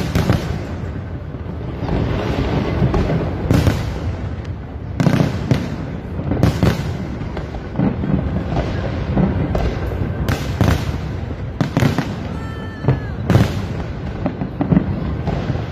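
Aerial fireworks bursting in quick succession: about a dozen sharp bangs over a continuous low rumble of further bursts.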